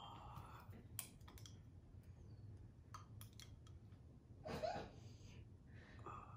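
A metal spoon clicking lightly against a ceramic bowl as it is worked around a raw egg yolk: a few separate faint clicks, with a brief faint vocal sound about two-thirds of the way through.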